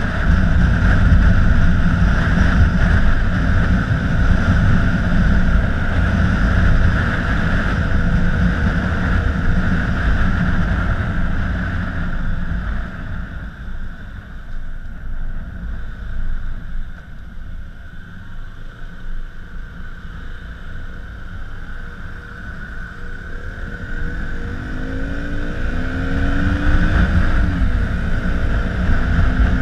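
Wind rushing over the camera microphone on a KTM 125 Duke at speed, with the bike's single-cylinder 125 cc engine under it. The rush eases in the middle as the bike slows. Near the end the engine rises in pitch as it accelerates, drops at a gear change, then rises again.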